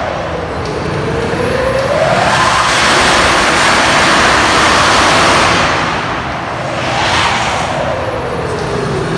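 Jet-engine-powered golf cart running: a loud roar with a whine that climbs in pitch about a second in, holds while the roar peaks, falls away around six seconds, and starts to climb again near the end.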